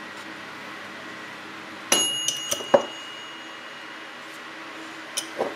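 Metal fork clinking and tapping against a dish as jam is spread: a quick cluster of sharp clinks about two seconds in, the first ringing briefly, and two more clinks near the end.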